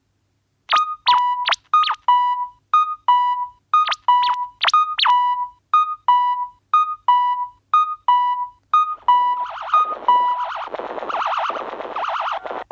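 Synthesizer tones: a run of short electronic blips, each a higher note dropping to a lower one and ringing off, in an uneven rhythm. About nine seconds in, a buzzier pulsing layer comes in under them.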